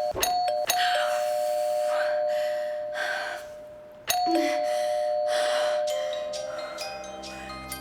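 Two-tone doorbell chime rung over and over: a couple of quick ding-dongs, then a long ding-dong that keeps ringing, and another at about four seconds that slowly fades. Soft swishes of noise come between the chimes.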